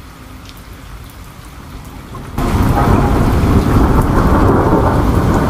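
Rain falling steadily, then a little over two seconds in, a sudden loud rumble of thunder breaks in and keeps rolling under the rain.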